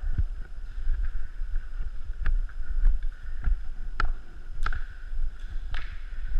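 Scattered sharp clicks and snaps, about eight at irregular spacing, over a steady low rumble of handling and movement noise on a body-mounted action camera.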